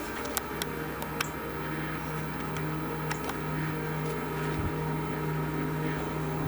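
A few sharp clicks in the first second or so, then a steady motor hum at one fixed low pitch.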